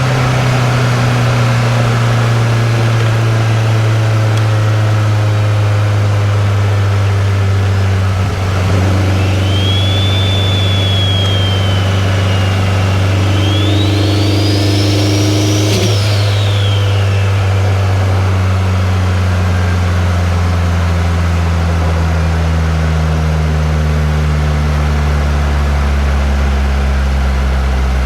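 2003 Subaru WRX's turbocharged flat-four engine running on the move, its low drone slowly falling in pitch. A high whistle rises and falls twice between about nine and seventeen seconds in, ending with a brief click.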